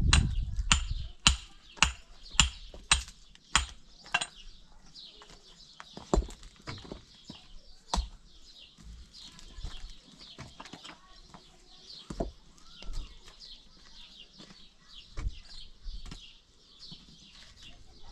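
Repeated blows of a hand tool, about two a second for the first four seconds, then occasional single knocks, with birds chirping throughout.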